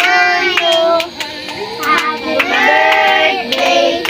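Voices singing a birthday song, with hand claps keeping time at about two a second and a couple of long held notes.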